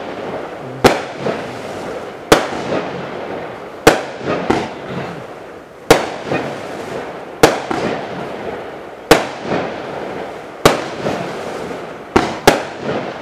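A 96-shot consumer fireworks cake firing its shots one after another: a sharp bang about every second and a half, each followed by smaller pops. Two shots go off close together near the end.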